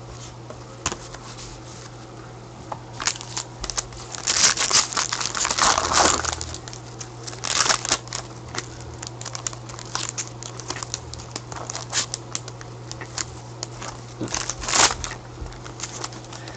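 Foil trading-card pack wrapper crinkled and torn open, with cards shuffled and tapped between gloved hands. Irregular crackly rustles and small clicks, busiest about four to six seconds in and again near the end.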